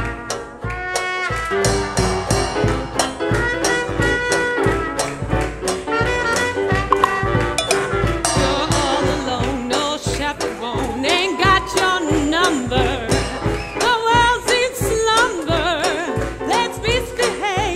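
Swing jazz band with brass playing an upbeat tune on a steady beat; a woman's voice comes in singing about halfway through.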